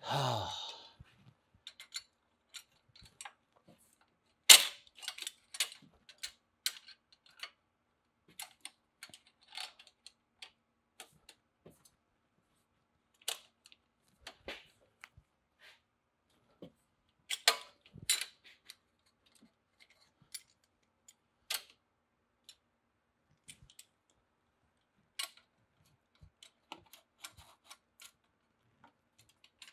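Pliers and metal exhaust mounting hardware clicking and clinking as the bracket is squeezed by hand to fit a spacer: scattered sharp clicks, the loudest about four and a half seconds in and a few more close together around eighteen seconds.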